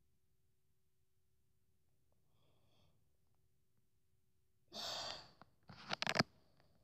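Near silence, then a little under five seconds in a boy breathes out hard close to the microphone, followed by a second, shorter breath with a few clicks.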